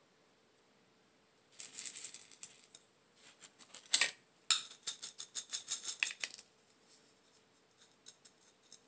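Gritty rattling and crackling of potting mix being worked by hand into a small terracotta pot. It starts about a second and a half in, with a sharp click about four seconds in and a dense run of ticks just after, then thins out to scattered ticks.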